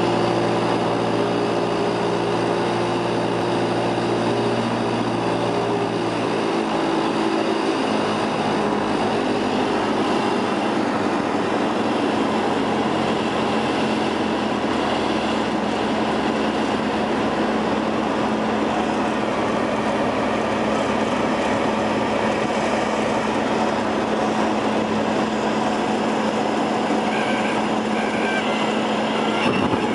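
Cessna 172's four-cylinder Lycoming engine and propeller running steadily, heard from inside the cabin with wind noise, at reduced power on approach to a grass strip. The engine note changes about six seconds in.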